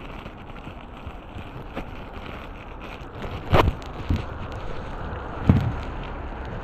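Steady rush of wind and sea along a rocky shore, with wind buffeting the microphone, broken by a few sharp knocks about halfway through.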